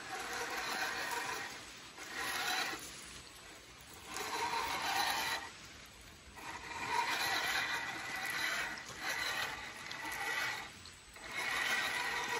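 RC rock crawler's electric motor and geartrain whining in about five bursts of throttle as it crawls over rocks, each burst lasting a second or more.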